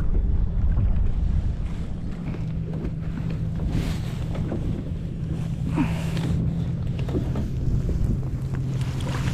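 Wind buffeting the microphone on a kayak out on open water: a steady low rumble with water sounds around the hull, and a couple of brief louder rustles about four and six seconds in.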